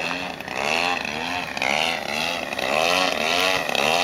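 Engine of a 2-metre 3D Edge aerobatic radio-controlled plane running in flight, its pitch rising and falling over and over, about every two-thirds of a second, as it is put through maneuvers.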